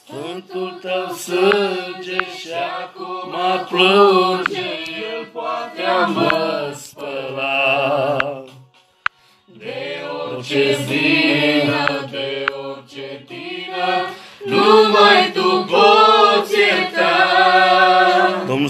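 A woman singing a religious song with vibrato and no instruments, breaking off briefly about nine seconds in before the next phrase.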